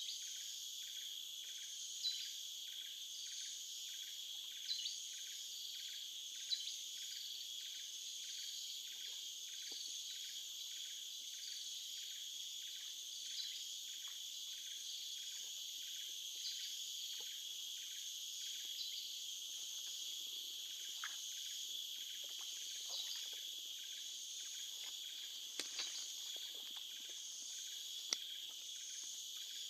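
Insects calling steadily in a high-pitched chorus, with an even pulsing of about two beats a second, and a few short sharp chirps now and then.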